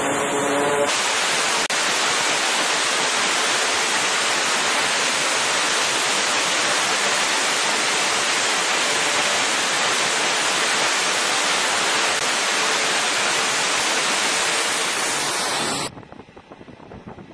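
Aircraft engines running at high power on a carrier flight deck, a steady, dense hiss-like roar. It cuts off suddenly near the end, leaving fainter wind noise.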